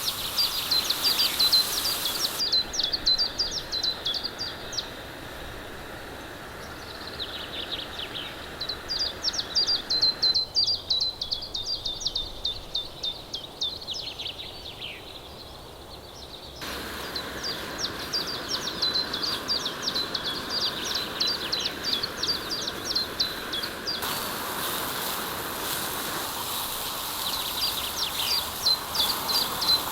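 Songbirds singing: repeated phrases of quick, high chirps and trills, one after another, over a steady background hiss that shifts abruptly a few times.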